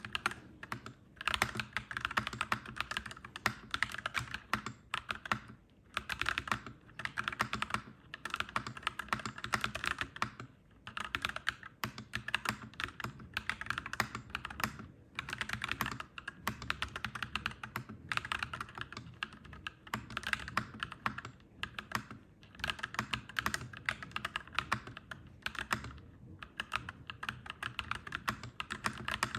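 Clacky mechanical keyboard being typed on: fast, continuous runs of key clacks broken by brief pauses every few seconds.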